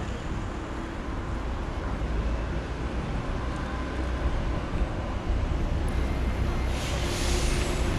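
Outdoor street ambience: a steady low rumble of city traffic, with a brief high hissing rush about seven seconds in.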